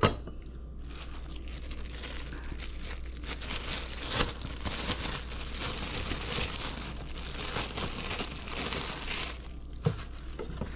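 Plastic packaging crinkling and rustling as it is handled, starting about a second in and stopping shortly before the end, followed by a single knock.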